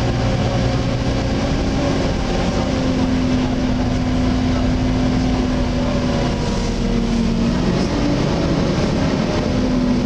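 Volvo B7TL double-decker bus running, heard from the upper deck: a steady diesel engine and loud cooling-fan drone, the fan's vacuum-cleaner-like 'hoover' whine. Its pitch dips about seven to eight seconds in.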